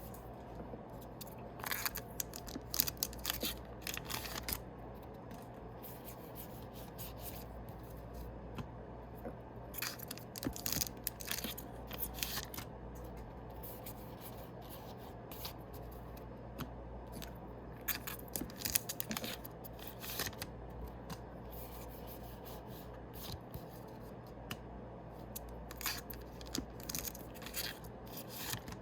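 Foil Yu-Gi-Oh booster packs being torn open and the cards slid out and handled: a burst of crinkling and rustling about every eight seconds, over a steady low hum.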